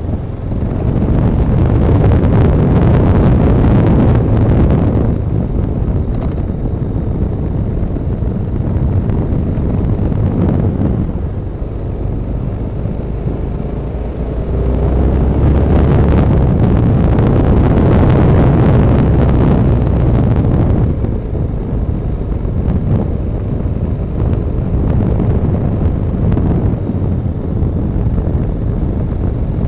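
Honda NX650 Dominator's single-cylinder four-stroke engine running on the move, mixed with wind rushing over the microphone. The sound swells twice, a second or so in and about halfway, and drops back in between.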